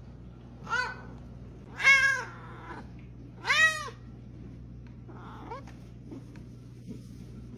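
Long-haired cat meowing: three meows about a second apart, each rising and then falling in pitch, the last two louder, then a faint short one a couple of seconds later.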